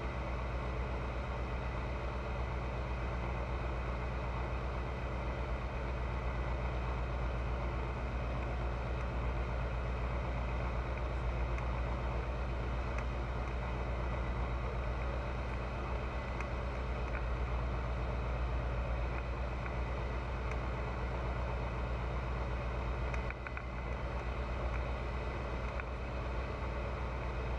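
Pipistrel Virus light aircraft's Rotax 912 four-cylinder engine and propeller running steadily, with a short dip in level about 23 seconds in.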